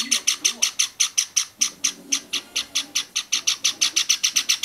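Java sparrow chick begging in the nest while the parent feeds it regurgitated food: a fast, even run of sharp, high calls, about eight a second.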